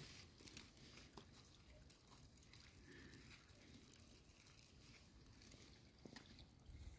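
Near silence, with a few faint, short rustles of a thin plastic bag as bread is torn from a roll inside it.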